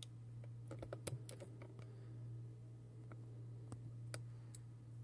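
Faint scattered clicks and taps of hands handling a foil card pack and the camera. A quick cluster comes about a second in and a few single ticks near the end, over a steady low hum.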